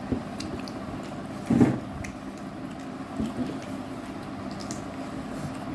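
Eating at the table: chewing and fingers squishing rice and pork on a plate, with small clicks and one short, louder low thump about one and a half seconds in, over a steady low hum.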